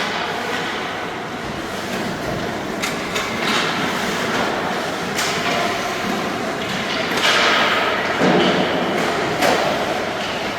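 Youth ice hockey scrimmage in a rink: a steady din of skates and players, broken by scattered sharp thuds of pucks and sticks hitting the boards, with shouting about seven seconds in.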